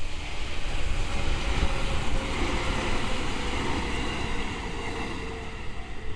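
A JR 211 series electric train passing over the level crossing: a steady rumbling rush of wheels on rail that slowly fades toward the end. The crossing's warning bell rings underneath it, mostly drowned out.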